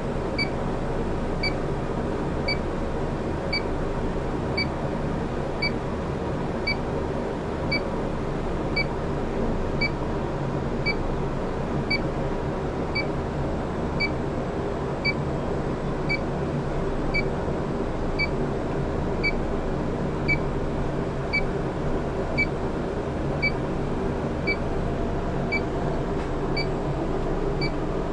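Electronic refrigerant leak detector (D-TEK 3) beeping steadily about once a second while scanning for leaks, over a steady mechanical hum.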